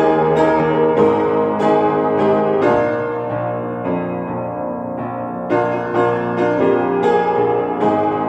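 Electronic keyboard in a piano voice playing a melody, notes struck about twice a second, with a softer, sparser stretch midway.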